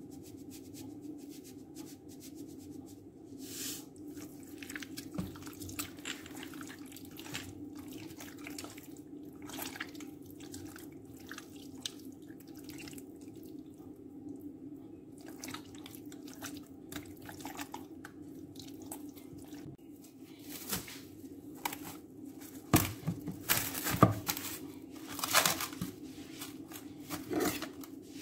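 Wet squelching and slapping of raw chicken pieces being rubbed and turned by hand in marinade in a glass dish. About 22 seconds in, louder crinkling of plastic cling film being stretched over the dish.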